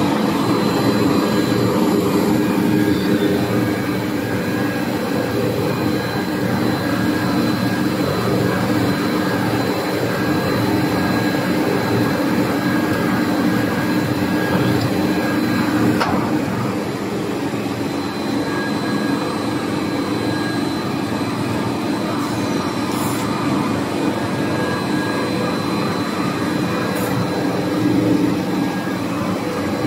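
Cast stretch film production line running: a steady industrial hum of motors and rollers with several constant whining tones held throughout.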